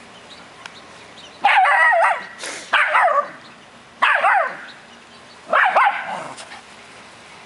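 Dogs play-barking as they wrestle: four high, wavering barks over about five seconds, the first about a second and a half in.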